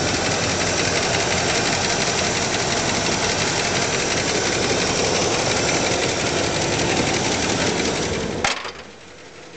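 Ford F-250 engine running with a fast, even clatter. Near the end there is a sharp click, and the sound drops off suddenly to a much lower level.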